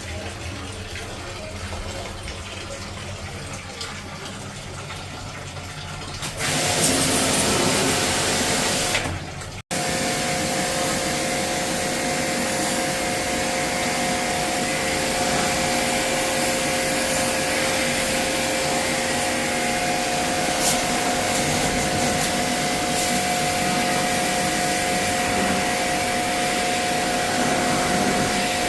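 Small electric machine running steadily, a rushing hiss with a constant whine, as when the unit is cleaned. A louder hiss comes a few seconds before it, after low rumbling.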